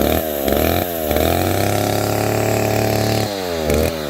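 Chainsaw engine revving in quick repeated bursts, each falling away in pitch, then held at a steady speed for about two seconds before the quick revving starts again.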